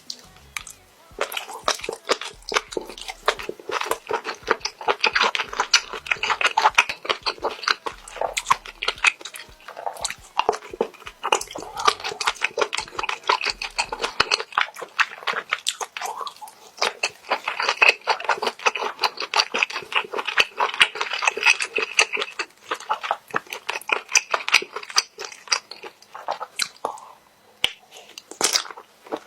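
Close-miked chewing of spicy stir-fried squid: a dense run of quick mouth clicks and smacks that pauses briefly three times.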